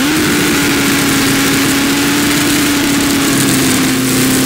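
Turbocharged Honda CBR1000RR drag bike's inline-four engine held at steady high revs during a burnout, its pitch sagging slightly, over a steady hiss.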